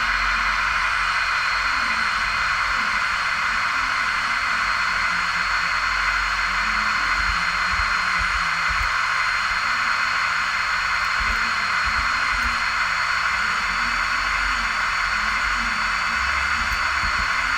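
Large airplane's jet noise: a steady, even rushing sound with a thin high whine running through it, and irregular low thumps underneath.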